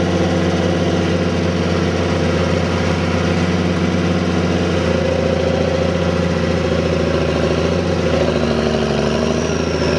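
Allis-Chalmers D-19 tractor's six-cylinder engine running steadily while pulling a plow. The engine note drops slightly about eight seconds in.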